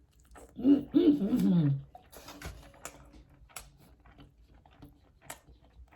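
A person chewing a mouthful of baleada, a soft flour tortilla filled with beans, avocado and steak, with many small wet mouth clicks. About a second in, just before the chewing, comes a short hummed run of voiced sounds falling in pitch.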